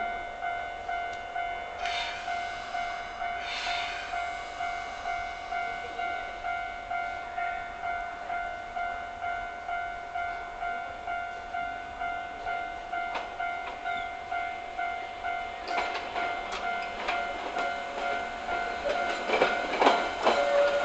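Japanese level-crossing warning bell ringing steadily at about two dings a second while a Hankyu 3000 series electric train approaches. Two short hisses come about two and three and a half seconds in. From about sixteen seconds the train's wheels clatter and click over the rail joints and points, growing louder toward the end.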